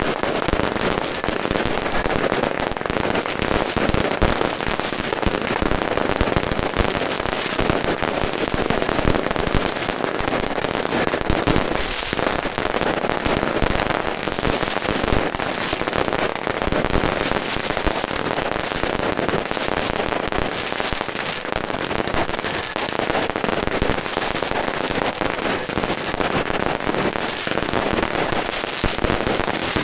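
Firecrackers going off in a dense, unbroken crackle of rapid pops, steady in loudness throughout.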